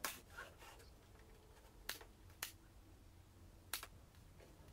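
Faint sharp clicks of a Milwaukee cordless brad nailer driving brad nails into MDF crown molding, three main shots about two seconds apart.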